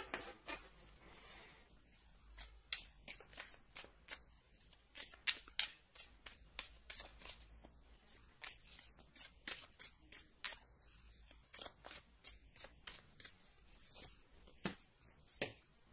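A tarot deck being shuffled by hand: a long run of short, irregular card snaps, about two or three a second.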